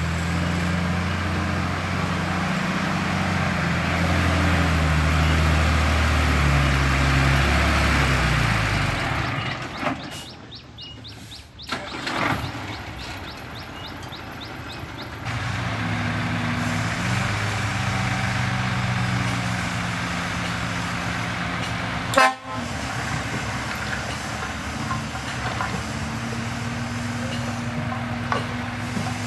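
Heavy vehicles with low horn-like tones that jump between pitches in steps, over engine rumble, broken by several abrupt cuts and a sharp click.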